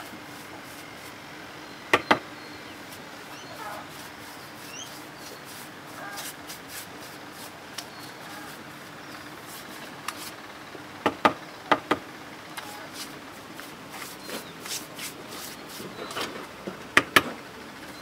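Paintbrush working white paint onto a concrete counter leg: soft scratchy brush strokes, broken by sharp knocks in close pairs about two seconds in, twice around eleven to twelve seconds, and near the end. A few faint short chirps come through in the background.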